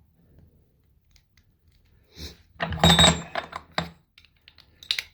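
Small metal parts of a Weiser SmartKey deadbolt clicking and clinking as the lock is reassembled and its retaining clip fitted back on, with a brief metallic ring about three seconds in. A few sharper clicks follow near the end.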